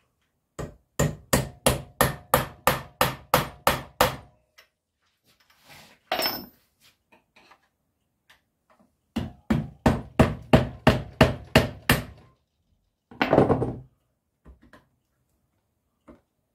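Hammer blows on a tool held against the metal motor housing of a motorcycle ABS pump unit clamped in a vice, knocking the motor loose from the pump. A run of about a dozen quick strikes, about three a second, comes first. After a pause there is a second run of about ten, then a short scraping burst.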